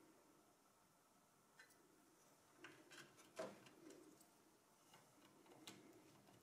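Near silence with a few faint clicks, the loudest about three and a half seconds in: SATA power connectors being handled and pushed onto the drives.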